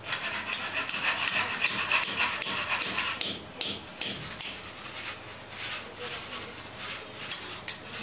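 A hand tool worked against a wall: quick, irregular knocks and scraping strokes, a few each second, busiest in the first half and sparser after.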